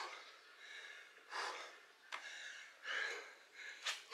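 A person breathing hard from exertion: heavy, gasping breaths, one about every second to second and a half.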